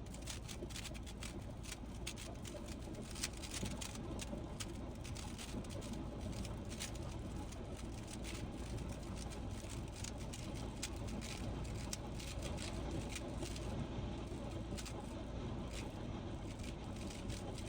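Rubik's cube being turned quickly: a steady run of irregular plastic clicks and clacks from the turning layers, over a constant low hum.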